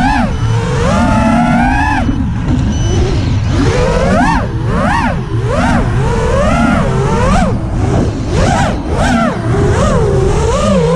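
FPV quadcopter's motors and propellers whining as heard from its onboard camera, the pitch rising and falling over and over with the throttle. The swings come faster in the second half, about two a second.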